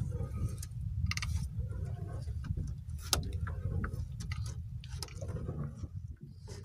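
Steady low rumble with scattered light clicks and knocks from a fishing longline being handled over the side of a small boat, growing fainter toward the end.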